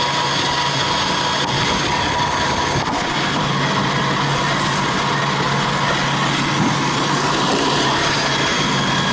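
A motor running steadily, a constant noisy hum with a thin high whine over it.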